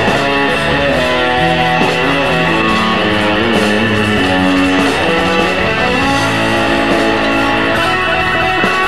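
A live rock band playing an instrumental passage led by an amplified electric guitar, with quick picked notes and a few sliding notes over bass and drums.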